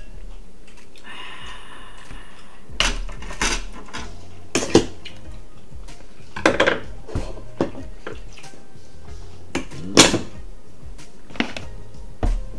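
Hard rock crab shells being cracked and cut with kitchen scissors and shell crackers: a series of sharp, irregular cracks and clicks, about a dozen, over a steady low hum. The loudest crack comes about ten seconds in.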